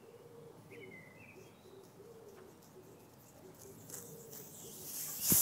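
Lighter gas hissing out of a small 3D-printed pressure vessel as its bottom screw is loosened. The hiss starts faint near the end and quickly gets loud after a click, showing the tank still held gas. Before that, faint bird chirps are heard over a quiet background.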